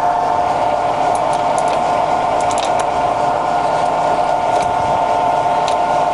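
Colchester Student 1800 centre lathe running under power, its geared headstock giving a steady whine with a few faint light ticks.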